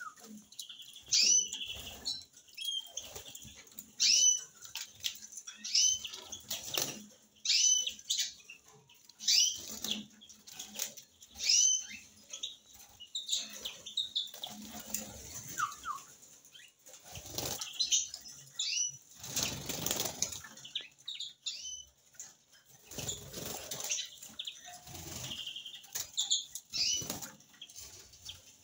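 Caged finches, canaries and a greenfinch, fluttering their wings in the cage, with short high sweeping chirps every second or two. A longer spell of wing noise comes about two thirds of the way through.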